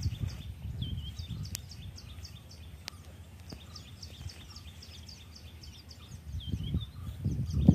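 Birds chirping in quick, regular, high repeated calls, several a second, over low rustling that grows louder near the end.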